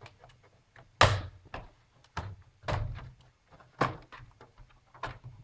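Plastic top cover (palm-rest case) of a Lenovo IdeaPad G560 laptop being lifted off its base: a series of sharp plastic clicks and knocks, about six, the loudest about a second in, as its clips let go and the case is handled.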